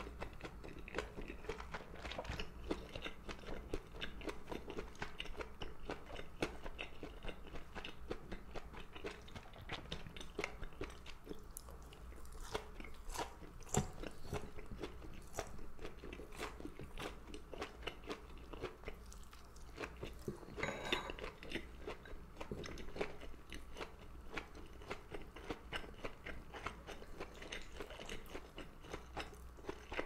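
Close-miked chewing and mouth sounds of someone eating rice, seaweed soup seaweed and gondre (Korean thistle greens): a continuous run of small wet clicks and soft crunches.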